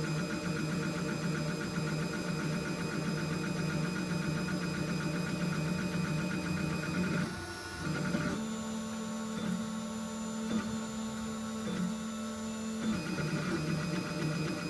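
Mankati XT Plus 3D printer printing, its stepper motors humming as the print head moves, the pitch shifting with each move. About halfway through the hum briefly dips, then holds on one steady tone for about four seconds before the busier changing pattern returns.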